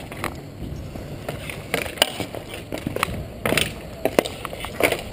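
Skate wheels rolling and scraping on a hard outdoor rink surface, with several sharp clacks of hockey sticks and puck scattered through.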